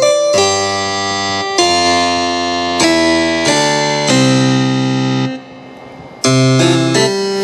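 Yamaha DGX-660 digital piano played with both hands: a run of held chords, changing about once a second, with a brief pause a little past the middle before the chords start again.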